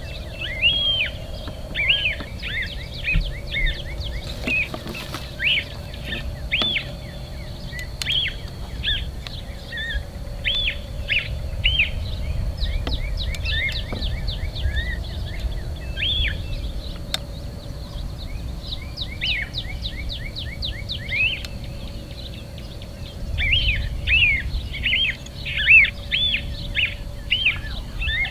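Small birds chirping, many short high calls in quick runs, busiest at the start and near the end, over a steady low rumble and a thin steady high tone.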